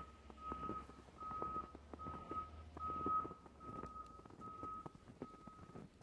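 A vehicle's reversing alarm beeping at a steady, even pace, a little faster than one beep a second, over the soft crunch of footsteps in fresh snow.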